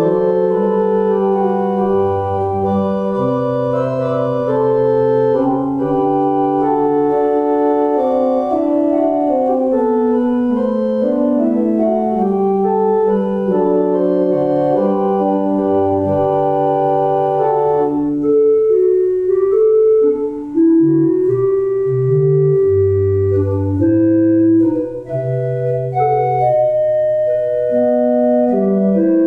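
Organ playing music in sustained chords that change every second or two over a moving bass line.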